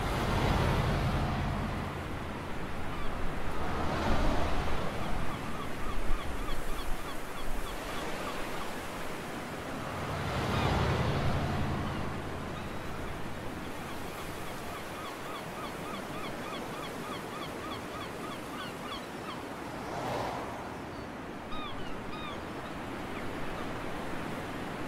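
Sea waves breaking on a beach, swelling and fading every few seconds. Through the middle a bird calls in quick repeated notes.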